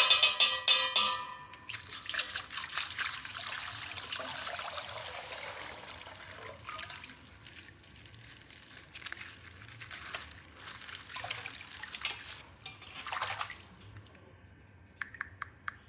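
A short ringing chime, then a stretch of dense crackling and rustling, like toy packaging being opened. It thins out after about six seconds into scattered clicks and crackles.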